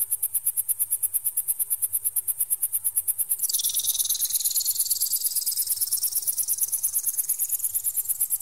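Electronic bird-repeller sound: a shrill high-pitched tone pulsing rapidly, about eight pulses a second. A little over three seconds in, a second tone joins, dropping sharply and then rising slowly and steadily.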